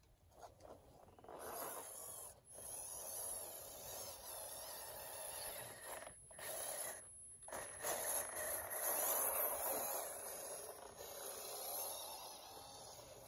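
Small electric motor and gearbox of an RC crawler truck whirring as it drives over dirt, growing louder and then fading, with a faint steady high whine.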